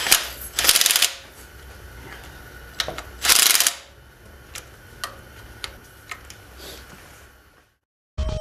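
Quarter-inch drive ratchet clicking in short bursts as it snugs the thermostat housing bolts on a Subaru EJ engine's water pump, with a few single clicks between; the loudest bursts come just under a second in and at about three and a half seconds. The sound cuts out shortly before the end.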